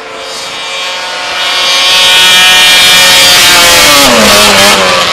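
Snowmobile engine at high revs, growing louder as it comes close. Its pitch drops near the end as it goes by.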